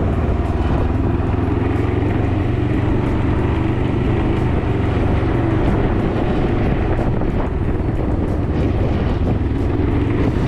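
Can-Am Ryker three-wheeled motorcycle running at steady speed, its engine note under a constant rush of wind and road noise.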